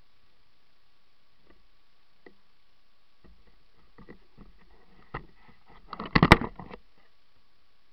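Close handling and contact noise at the camera: a few light taps, then rustling and knocking from about three seconds in, building to a brief burst of loud clattering knocks about six seconds in as the camera is swung.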